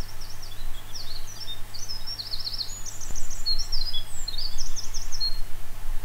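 Small songbirds singing: a run of quick, high chirps and short trilled phrases that stops shortly before the end, over a steady low background hum.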